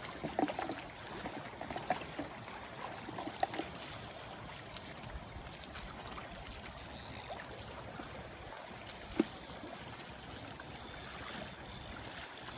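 Stream water flowing steadily, with a few small knocks and splashes in the first few seconds and one sharp click about nine seconds in.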